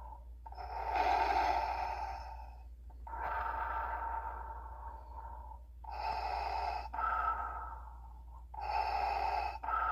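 Darth Vader's mechanical respirator breathing, played through the small built-in speaker of a Vader helmet popcorn bucket, in a slower pattern of about four long inhale and exhale sounds, each two to three seconds long.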